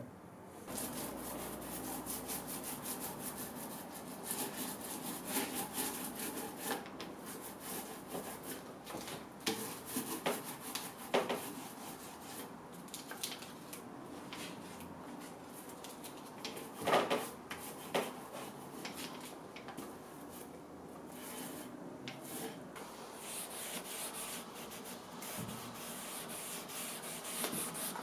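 Steady hand rubbing and scrubbing of an applicator on wood while finishing a drawer, with a few sharper knocks or strokes around the middle.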